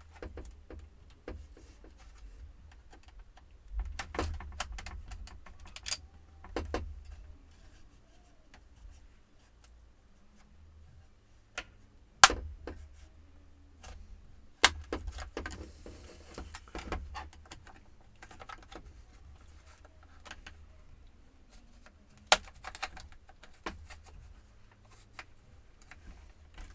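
Scattered clicks, taps and knocks of a laptop's plastic case parts and small metal pieces being handled during disassembly, with a few sharper snaps standing out, the loudest about twelve seconds in.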